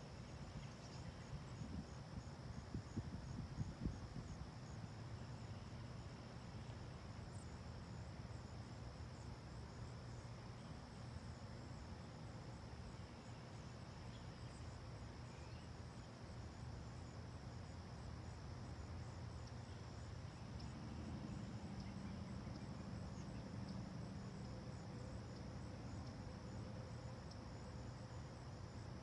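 Steady insect chorus: a continuous high trill with a faster fine pulsing above it. Under it runs a low steady rumble, a low hum joins about two-thirds of the way through, and a few soft low thumps come in the first few seconds.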